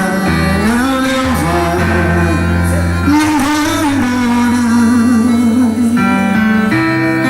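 Forró music from a band: a singing voice carrying a wavering melody over plucked guitar and a sustained bass line that drops out about three seconds in.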